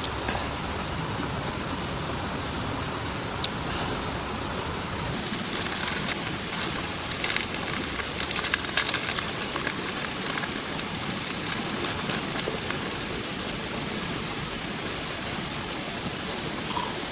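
Heavy rain falling steadily, with scattered sharp ticks and taps clustering from about six seconds in.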